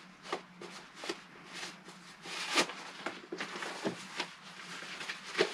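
Nylon fabric rustling and rubbing as a packed inflatable camping pillow is handled and unrolled, with a few sharper crinkles, the loudest about two and a half seconds in.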